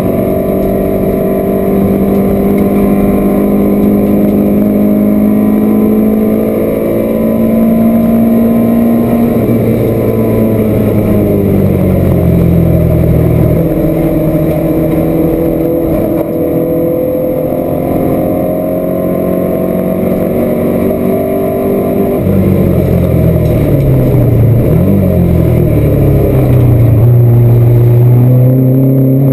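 A race car's engine at racing speed, heard from inside the cabin: it holds high revs, drops in steps as the driver lifts, brakes and changes down about ten seconds in, then climbs through the gears again, with another lift and downshift a little after twenty seconds before it pulls hard once more.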